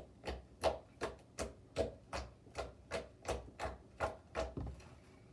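Homemade fluffy slime squeezed and pressed in the hands, giving a quick run of wet clicks and pops, about three a second, that stops near the end.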